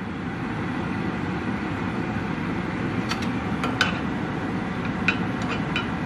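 Steady hiss from a gas burner heating a small nonstick pan of ghee. From about three seconds in, a metal spoon clicks against the pan a few times as the melting ghee is stirred.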